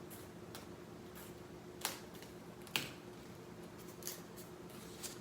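A few light, sharp clicks and taps from handling a fingerboard mold and veneer board, over a faint steady hum.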